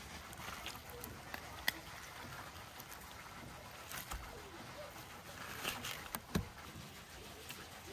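Large knife cutting and scraping cooked meat off a beef leg bone: scattered soft scrapes and clicks, with a dull knock about six seconds in.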